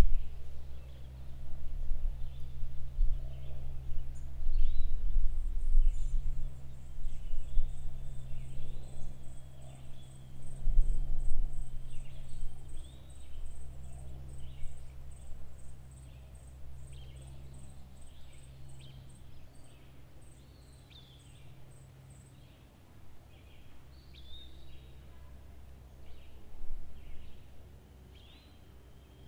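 Countryside ambience: small birds chirping and calling throughout, with a high, rapid pulsing trill lasting about sixteen seconds. Beneath them a low wind rumble gusts loudest in the first half and dies down later.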